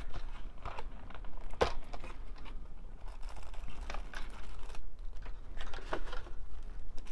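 Clear plastic packaging tray and cellophane wrapper crinkling and crackling as they are handled, with a few sharper plastic clicks.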